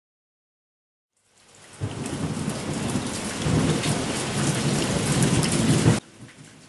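Heavy rain falling with a low rumble of thunder, fading in about a second in and cutting off suddenly near the end.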